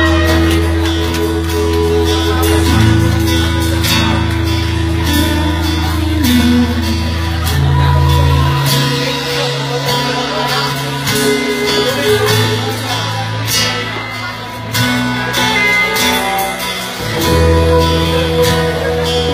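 A live rock band playing: strummed acoustic and electric guitars over held bass notes that change every few seconds, with drums and cymbals, and a woman singing.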